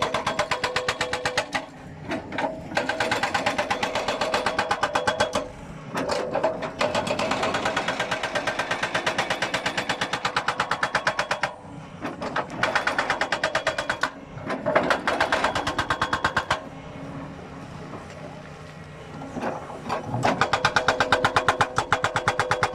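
Hydraulic breaker on a Doosan excavator hammering with rapid, even blows, in runs of a few seconds separated by short pauses, with a longer quieter lull before it starts up again near the end.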